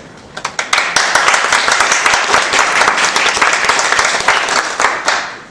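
Audience applauding: a few scattered claps about half a second in swell within a second into steady applause, which dies away near the end.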